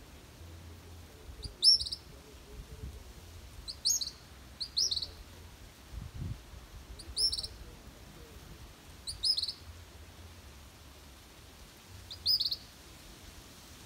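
A fledgling bird's begging calls, the hungry young bird calling for its parent to bring food: six short, high chirps at irregular gaps of one to three seconds.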